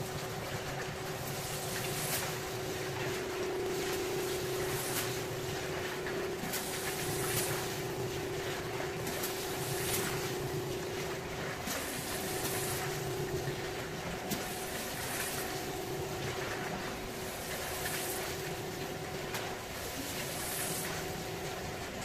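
A rug-cleaning machine's motor running with a steady whine, with a hissing swish that comes again every second or so.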